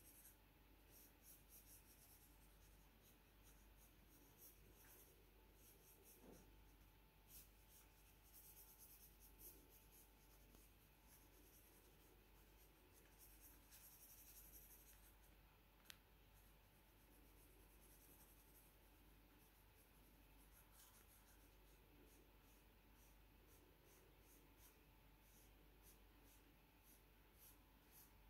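Faint scratching of a pencil shading on sketch paper, in many quick repeated strokes, with one sharp click a little past halfway.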